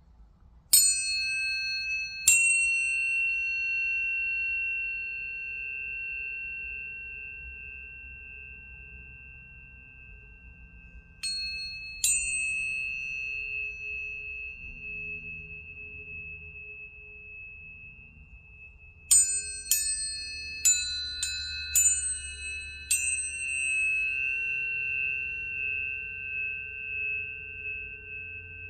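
Planetary tuning forks struck one after another and left ringing. Each strike gives a sharp metallic tap, then a long steady high tone that slowly fades. There are two strikes near the start, two more about eleven seconds in, and a quick run of about six near the end, their tones overlapping.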